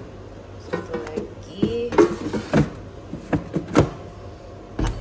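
Several sharp clunks and knocks from handling the plastic air fryer baskets and kitchen items on a stone countertop, with music in the background.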